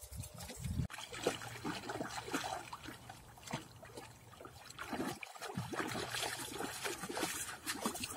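A German Shepherd x Belgian Malinois and a Siberian Husky wading through shallow water, their legs making a run of small, irregular splashes and sloshes.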